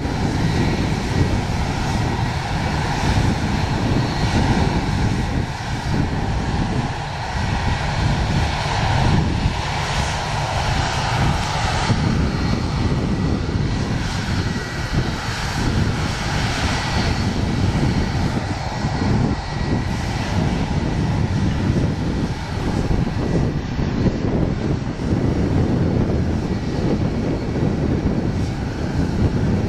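Air France Airbus A340's jet engines at takeoff thrust: a loud, steady noise with a thin high whine running through it.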